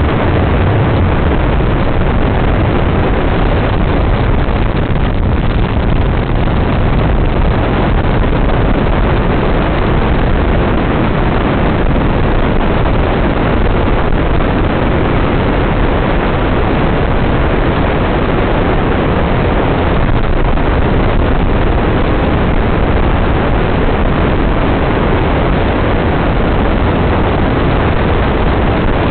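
Dune buggy engine running steadily at driving speed, mixed with heavy wind buffeting on the microphone.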